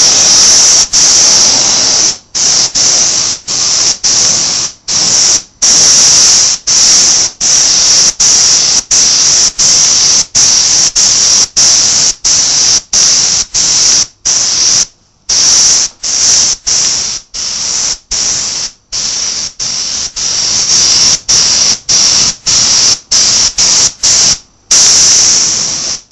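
Paint spray gun hissing as it sprays, in rapid bursts of about a second each, each cut off suddenly as the trigger is let go between passes.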